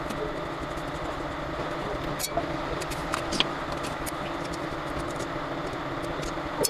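A steady mechanical hum, like a motor or engine running, with a few sharp clicks about two and three and a half seconds in.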